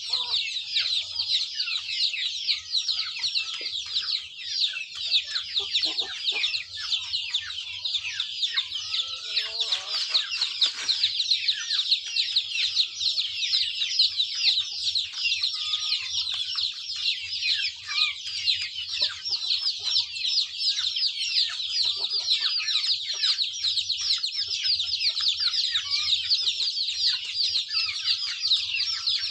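A flock of chickens calling together: a dense, unbroken high-pitched chirping, with a few lower clucks near the start and again about ten seconds in.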